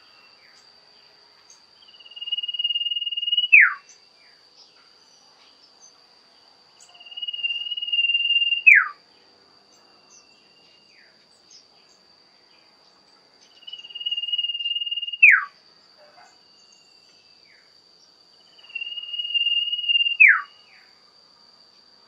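Common iora (cipoh) singing its shrill whistled song four times, about every five to six seconds. Each phrase is a long level whistle that drops steeply at the end. A steady high insect drone runs underneath.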